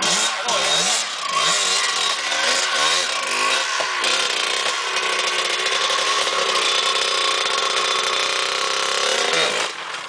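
Dirt bike engine revving unevenly under load as the bike is climbed over a boulder, then held at a steady high rev for several seconds before dropping off near the end.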